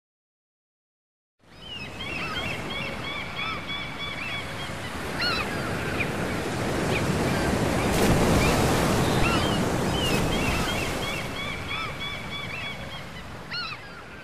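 Gulls crying over breaking surf, coming in about a second and a half in after silence. The surf swells to its loudest midway and fades toward the end, with many short, repeated gull cries over it.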